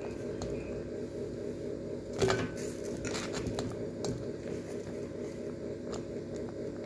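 Faint wet squishing and light taps as slices of stale bread are pressed and turned in an egg-and-milk batter in a plastic bowl, with a few small clicks, the clearest about two seconds in. A steady low hum with a faint regular pulse runs underneath.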